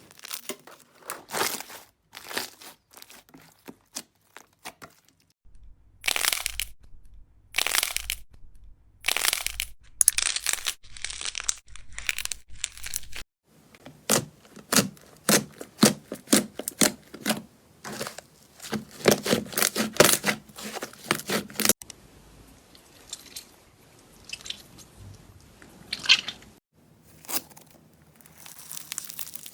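Slime being squeezed, pressed and stretched by hand, giving runs of crackling, crunchy pops and clicks, in several short clips that change abruptly every few seconds.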